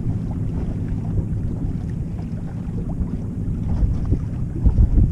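Wind buffeting the microphone in a steady low rumble, with choppy river water lapping against the boat's hull and a louder gust near the end.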